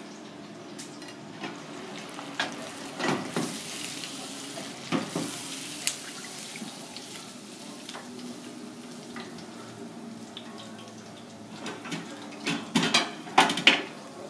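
Kitchen work: water splashing in short runs, and utensils and dishes knocking against hard surfaces, with a quick cluster of loud knocks near the end.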